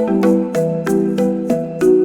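Background music: a bright, plucky marimba-like melody with about three to four struck notes a second over sustained chords.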